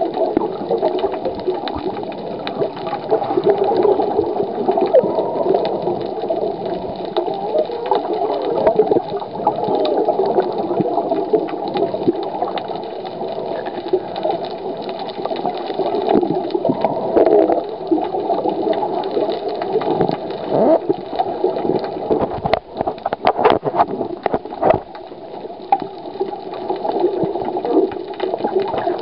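Muffled churning and gurgling of water heard by a camera held underwater. A run of sharp knocks and clicks comes in the last quarter.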